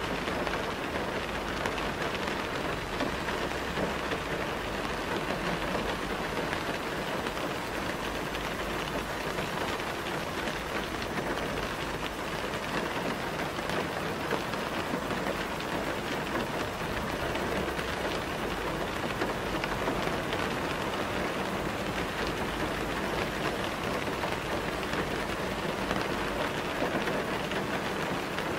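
Steady rain recording, an even hiss that holds the same level throughout, used as the cover sound of a subliminal affirmations track.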